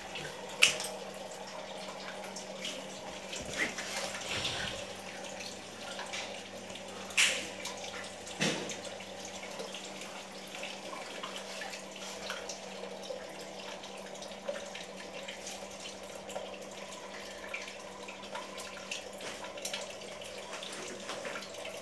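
Water running steadily, with a low steady hum underneath and a few sharp clicks of plastic parts being handled.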